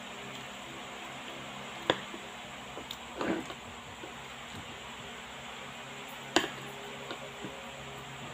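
A person eating saba banana: soft mouth sounds with a short smacking noise about three seconds in, and two sharp clicks, about two and about six seconds in, over a steady hiss.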